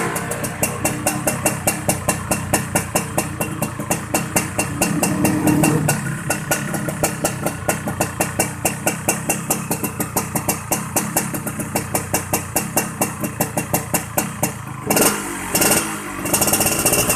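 Yamaha RX-King 135 cc two-stroke single-cylinder motorcycle engine idling with a steady, rough pulsing beat of about six a second, the snoring idle the owner calls 'ngorok'. There are short louder bursts near the end.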